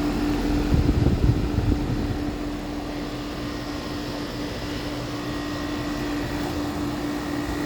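Outdoor unit of a 2-ton Carrier Sentry heat pump running: a steady fan-and-machine hum with a constant mid-pitched tone. A few low rumbles come about a second in.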